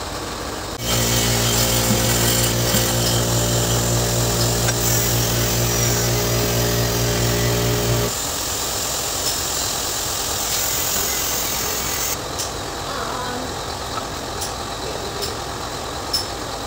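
A motor or engine runs nearby at a steady, even pitch, starting suddenly near the beginning and cutting off about eight seconds in. After that there is only a low background hum with a few light clinks.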